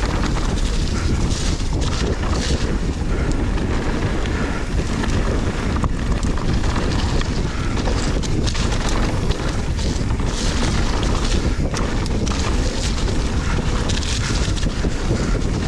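Wind rushing over the microphone of a camera on a mountain bike going fast downhill, with tyre noise and many small knocks and rattles as the bike runs over the rough, muddy trail.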